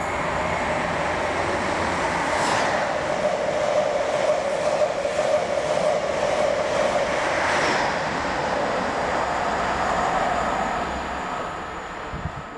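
The Midland Pullman, an HST set with Class 43 power cars, running through a station at speed: a loud, steady rush of engine and wheels. It swells twice, about two and a half seconds in and again near eight seconds, then fades away near the end.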